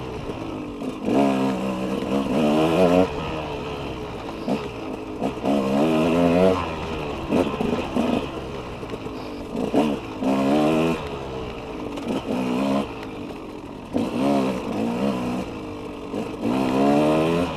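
KTM 200 two-stroke dirt bike engine revving in repeated throttle bursts, its pitch climbing with each burst and dropping back between them.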